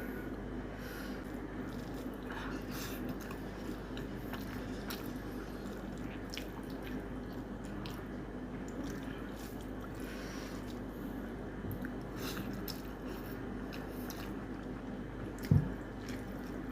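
Close-miked eating of mutton curry and rice: wet chewing and squishing with scattered small mouth clicks, over a steady low hum. A single heavy thump near the end.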